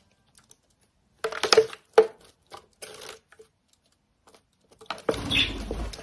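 Small bird splashing in a plastic bird bath: short bursts of water spatter and flicking against the plastic, with a louder, fuller rush of splashing near the end.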